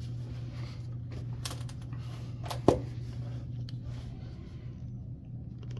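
Scattered light clicks and one sharp knock about two and a half seconds in, over a steady low hum.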